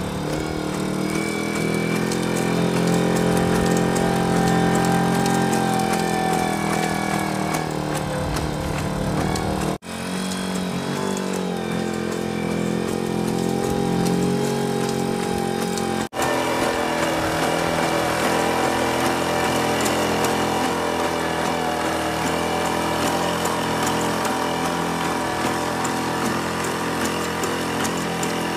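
Engine of an LS3 legged robot running, a steady, loud drone whose pitch drifts slightly up and down as the robot walks. The sound drops out for an instant twice, about ten and sixteen seconds in.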